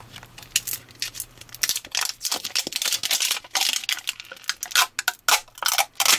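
Crinkly plastic wrapping on an LOL Surprise ball being peeled off by hand: a dense, irregular run of crackles starting about half a second in.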